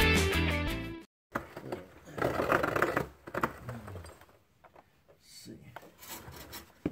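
Guitar intro music ends about a second in. Then light handling sounds follow: small clicks, taps and rustles of a thin steel brake line being fed along a car's underbody, with a short, sharp click near the end.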